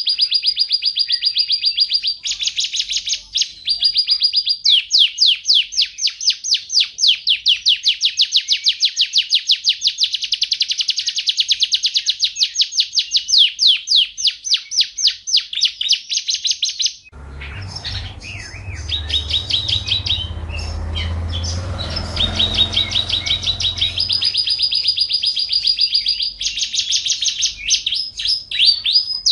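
White-rumped shama (murai hutan) singing: long, loud runs of rapid repeated notes and trills, one phrase after another. For several seconds past the middle, the song thins out and a low rumbling noise with a steady hum runs underneath.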